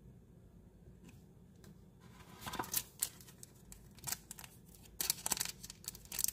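Thin clear plastic card sleeve crinkling and crackling as it is handled, in short bursts starting about two seconds in.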